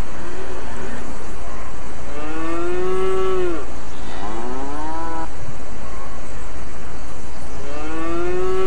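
Cattle mooing: three long calls, each rising and then falling in pitch, starting about two seconds in, at about four seconds, and near the end, with fainter lowing at the start. A steady hiss runs underneath.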